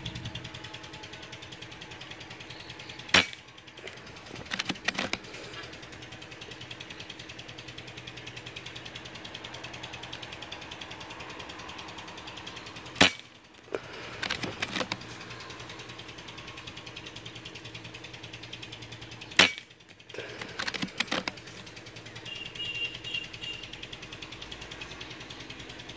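PCP air rifle firing pellets: three sharp shots, the second about ten seconds after the first and the third about six seconds later. Each shot is followed a second or two later by a short run of metallic clicks as the bolt is worked to chamber the next pellet from the magazine.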